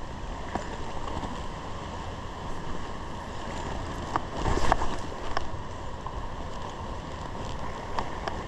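Stream water running steadily, with wind buffeting the microphone, and a few short clicks and knocks, the clearest about four to five seconds in.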